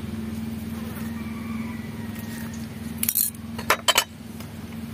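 A small glass bowl clinks against crockery as chilli powder is tipped from it and the bowl is put down. There is a short scrape about three seconds in, then two sharp clinks just before four seconds, over a steady low hum.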